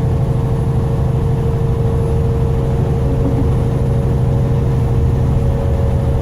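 Truck cab interior while driving at highway speed: steady drone of the diesel engine and road noise, with a constant hum above it.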